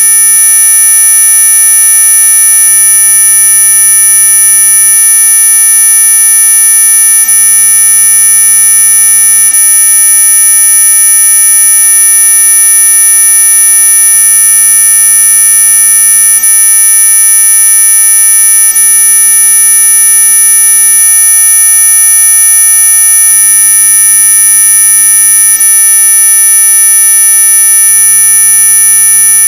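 Electronically generated anti-mosquito repellent tone: several steady pitches sound at once, the strongest very high-pitched, all held loud and unchanging.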